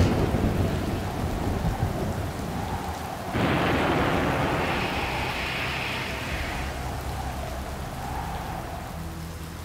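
Heavy rain falling steadily, with thunder rumbling low through the first couple of seconds. About three and a half seconds in, a loud rushing noise starts suddenly and fades away over the next few seconds.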